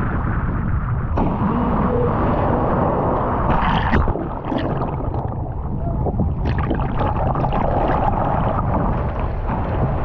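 Small Indian Ocean waves washing in over sand at the water's edge, with several surges of hissing wash. A heavy wind rumble on the microphone runs underneath.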